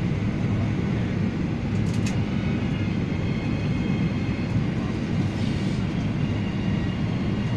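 Airliner landing: a steady low rumble of engines and rushing air, with a faint high whine now and then.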